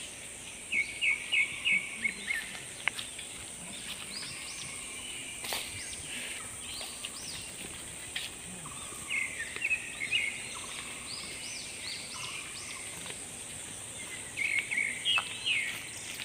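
Forest birds calling: several quick runs of short, high chirps that come and go, over a steady high insect hum. A few faint knocks are also heard.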